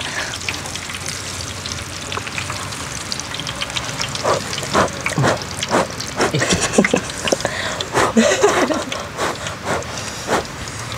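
Hot oil sizzling steadily in a wide pan as food deep-fries. From about four seconds in, short sharp crunches and clicks sound over it.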